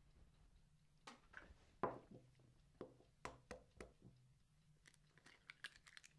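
A hen's egg being cracked and opened: a series of faint taps and knocks, then a quick cluster of small crackling clicks near the end.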